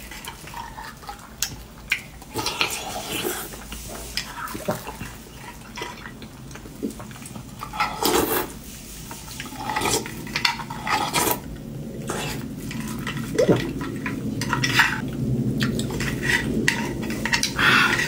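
A thin metal spoon scraping and clinking against a roasted beef bone as the marrow is dug out, in irregular short clicks and scrapes, mixed with close-up eating sounds as the marrow is sucked from the bone.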